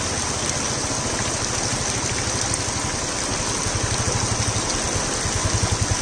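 Water rushing steadily as it pours off a bank and across a road, with a motorcycle engine running beneath it. The engine's low, even beat grows louder near the end as the bike comes up and rides into the water.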